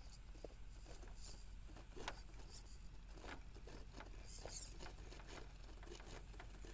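Faint scattered clicks and scrapes of an RC rock crawler's tires and chassis working over the course at low throttle, one slightly louder knock about two seconds in.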